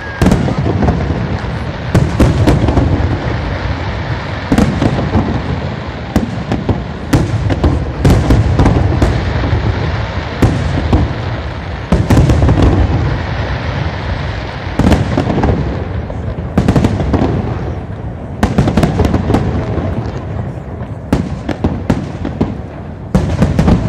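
Aerial fireworks display: a dense, continuous crackle of bursting shells, with loud clusters of bangs every two seconds or so.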